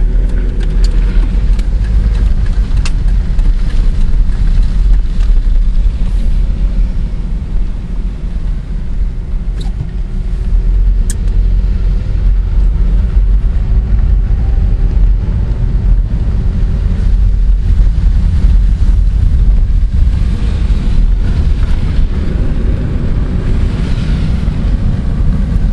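Car driving, a steady loud low rumble of road and engine noise, with a few faint sharp ticks scattered through it.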